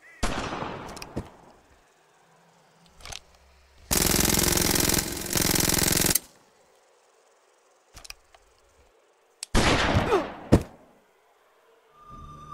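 Submachine-gun fire sound effects. A single loud shot rings out and dies away at the start. From about four seconds in comes a continuous burst of automatic fire lasting about two seconds, briefly broken near its middle, then another loud blast with falling tones around ten seconds in that ends in a sharp crack.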